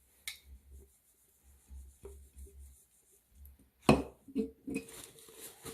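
Faint handling and rubbing sounds of an acrylic tumbler being cleaned, with a single sharp knock about four seconds in, then a faint steady tone.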